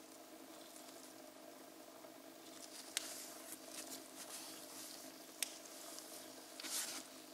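Faint small clicks and brief rustles over a steady low hum, with two sharper clicks a couple of seconds apart.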